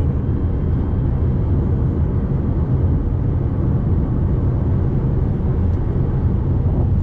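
Steady in-cabin road and engine rumble of a Fiat Toro diesel pickup cruising on the highway, a low, even drone without changes.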